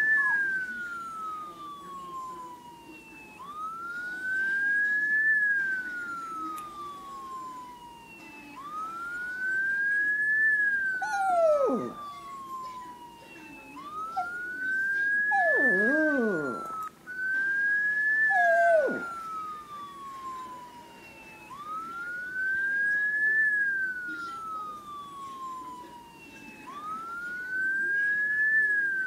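Police siren wailing, each slow rise and fall taking about five seconds. Around the middle a dog joins in with three short howls that slide downward in pitch.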